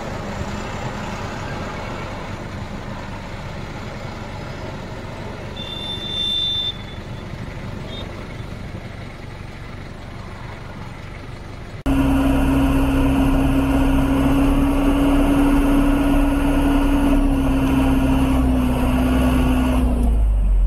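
Truck diesel engine idling, then about twelve seconds in held at high revs in a loud, steady drone. The engine is being raced to build air pressure for the truck's air brakes and air-assisted clutch.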